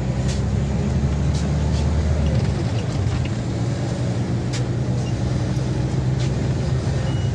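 Scania OmniLink city bus under way, heard from inside: a steady low engine and drivetrain hum with road noise. The lowest part of the hum drops away about two and a half seconds in, and a few short sharp clicks come through.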